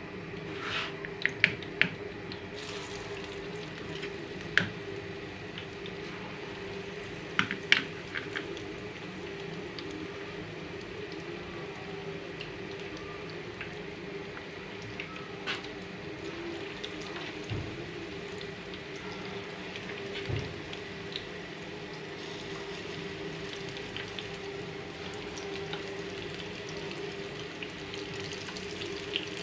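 Oil heating in a frying pan over a gas burner: a steady hiss and hum, with a few sharp clicks in the first eight seconds. Near the end, gram-flour pakora batter starts going into the hot oil and begins to sizzle.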